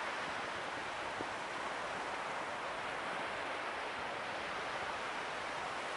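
Small surf washing steadily onto a sandy beach.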